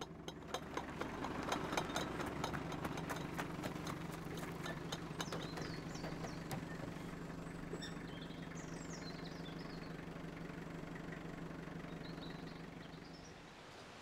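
Small milk delivery truck's engine idling steadily, then stopping near the end, while glass milk bottles clink in their crates, clicking often in the first half.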